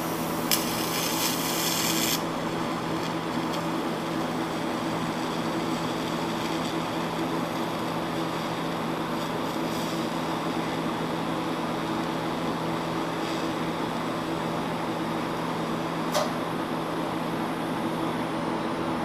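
DC TIG welding arc on a cast iron compressor head with nickel filler rod: a harsh buzz for the first two seconds as the arc strikes, then a steady hiss over the hum of the welder and its water cooler, ending with a click near the end as the arc stops.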